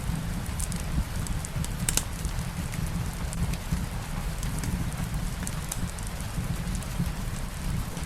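Steady light rain mixed with a crackling wood fire: an even hiss of rain over a low rumble, with scattered sharp pops and crackles throughout.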